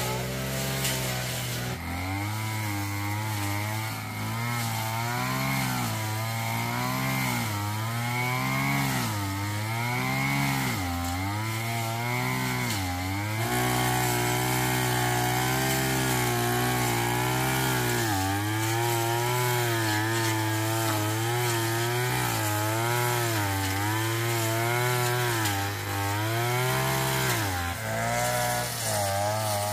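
Brush cutter's small petrol engine running at high speed while clearing overgrowth, its pitch dipping briefly again and again as the blade bites into the growth and then picking back up.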